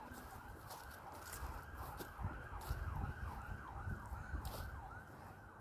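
Faint emergency-vehicle siren in a fast yelp, its pitch sweeping up and down about three times a second, with short crunching clicks of footsteps on a path.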